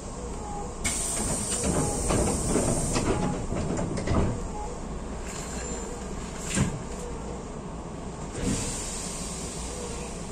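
Hankyu electric train running: steady rumble of the car on the rails, with a stretch of hiss about a second in and again near the end, and three sharp knocks spread through the middle.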